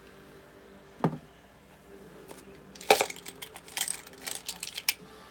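Small hard objects knocked and clattering together as they are handled on a counter: a single light knock about a second in, then a quick run of clicks and rattles from about three to five seconds, the first the loudest.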